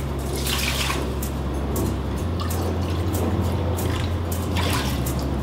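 Water pouring and trickling from a plastic pitcher into a measuring cup, over steady background music.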